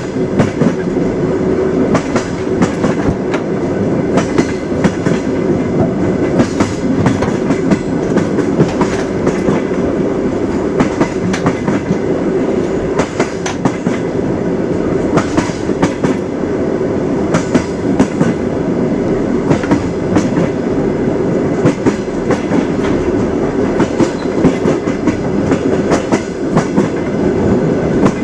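Train wheels clattering over rail joints in a continuous clickety-clack, with many sharp clicks over a steady rolling rumble.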